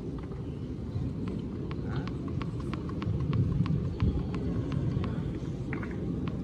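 Tennis ball bounced again and again on a hard court before a serve: a run of sharp bounces, about two to three a second, over a steady low rumble.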